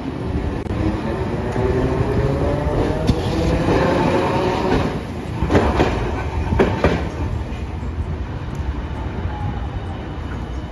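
Hiroden streetcar running past on street track: a whine that rises in pitch as it gathers speed, then three sharp clacks over the rail joints about five to seven seconds in as it goes by, the rumble easing afterwards.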